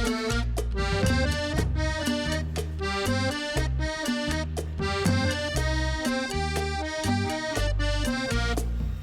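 Background music: an instrumental passage of an accordion-led Spanish-language song, with a steady beat and a pulsing bass line.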